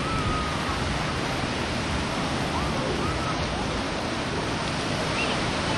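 Ocean surf washing steadily onto the beach, an even rushing noise with no breaks.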